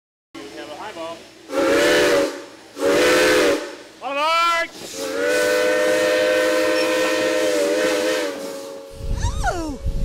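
Steam locomotive whistle sounding a chord: two short blasts, a third short one that slides in pitch as it opens, then one long blast of about four seconds. A low rumble sets in near the end.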